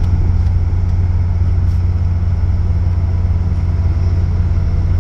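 Engine of a small vehicle ferry running steadily, a deep even drone heard on board as the boat gets under way.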